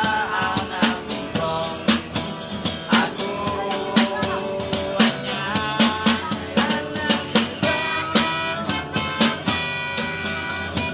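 Street busker's song: singing with guitar and a steady drum beat of about two strokes a second.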